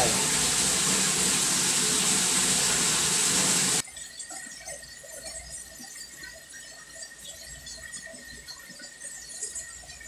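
Water gushing steadily from an opened outlet, bleeding down the pressure tank so the pressure switch will start the pump; the flow cuts off abruptly about four seconds in, leaving a faint steady high tone.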